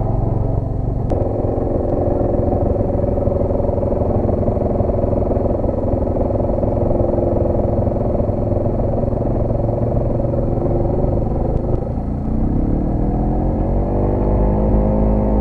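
ATV engine running steadily under a trail ride, then revving up about twelve seconds in, its pitch rising for a couple of seconds.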